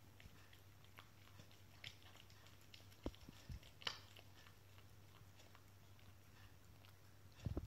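Cat eating from a small bowl: faint, irregular chewing clicks, a few louder ones about two to four seconds in. A louder low thump comes near the end.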